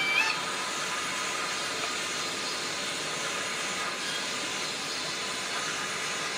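The sound decoder of a Fleischmann BR52 model steam locomotive playing a steady steam hiss. The tail of its whistle cuts off just as it begins.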